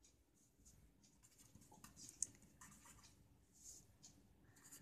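Faint scratching of a felt-tip marker writing on paper: a run of short strokes, with one brief tick about two seconds in.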